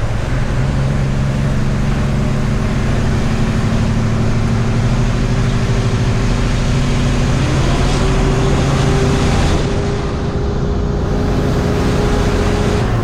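Semi-truck diesel engine pulling a heavy loaded trailer, running steadily under road noise. About seven seconds in, its note rises and then holds at the higher pitch.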